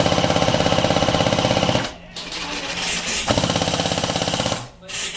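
Airsoft electric gun firing on full auto: two long rapid bursts, the first cutting off about two seconds in, the second starting a little past three seconds and lasting about a second and a half.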